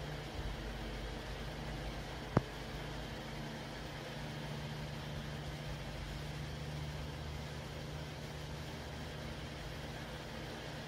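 Steady low hum and hiss of room background noise, with one sharp click a little over two seconds in.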